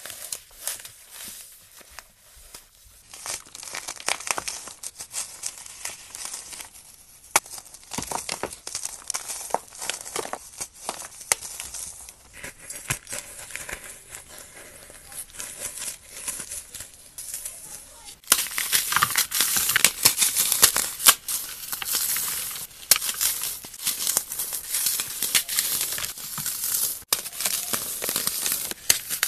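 Hands crushing and crumbling paste-covered dry floral foam: a dense run of crackly crunching and crumbling with many small sharp snaps. About two-thirds of the way through it turns louder and brighter, as dry foam breaks apart into pieces.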